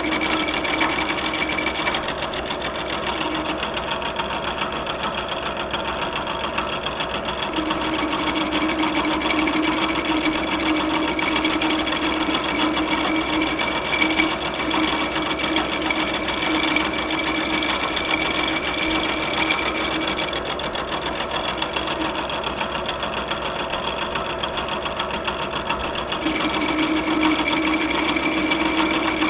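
Bridgeport milling machine running steadily, spinning a workpiece against a fixed cutting tool to turn it like a lathe. Its steady mechanical whine goes quieter and duller twice, for several seconds each time, then comes back.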